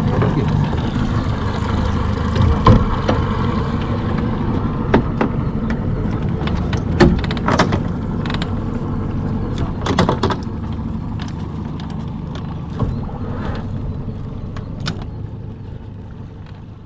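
Small boat's motor running at low speed with a steady hum, fading toward the end, with scattered knocks and clicks of gear on board.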